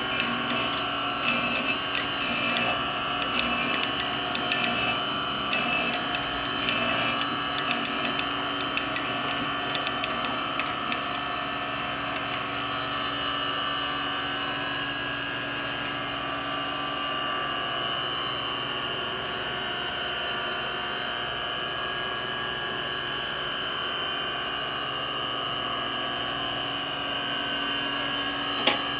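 Taft-Peirce 1TP reciprocating surface grinder running under power, with a steady machine whine and hum. Over the first nine seconds or so a light ticking comes about twice a second, then the running sound evens out. There is one sharp click near the end.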